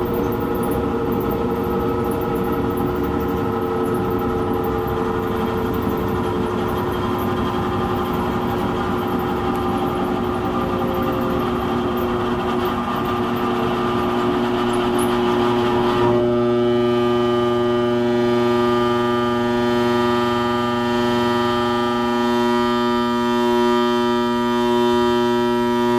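Air-conditioning blower fan running with a steady rush of air and a pitched hum under it. About two-thirds of the way through the rush of air falls away, leaving a steady humming whine with a clear pitch.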